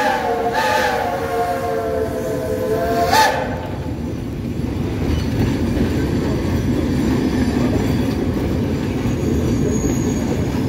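Steam whistle of a 1928 Shay locomotive blowing a steady tone that sags slightly in pitch and cuts off about three seconds in. After that comes the steady rumble of the moving locomotive and its train.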